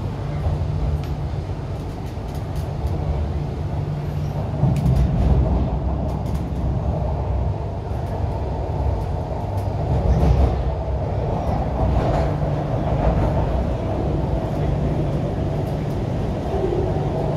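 Interior running noise of an MTR Kwun Tong Line Q-Train, a CRRC Changchun electric multiple unit, pulling away from a station. The traction motors and the wheels on the rails make a continuous low rumble that swells about five and ten seconds in.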